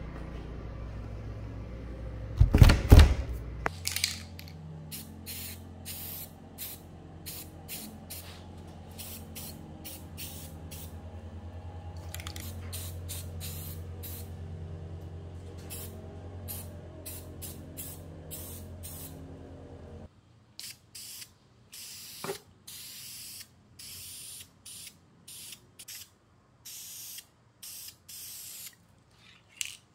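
Aerosol spray paint can fired in many short hissing bursts as black paint goes onto a hand plane part. There is a loud knock about two and a half seconds in, and a low steady hum under the first two-thirds that cuts off suddenly.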